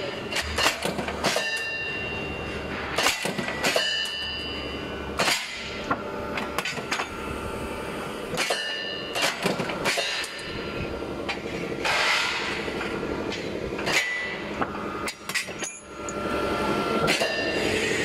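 CNC angle steel punching, marking and shearing line at work: an irregular series of sharp metallic bangs and clanks as the steel angle is struck and handled, some ringing on briefly, over a steady machine drone. A low hum runs under the first five seconds.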